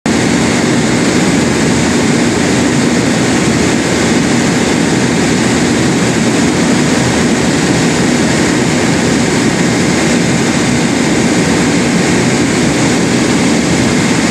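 Diesel generator set running steadily under about 68 kW of load, loud and even, with the controller reporting normal running.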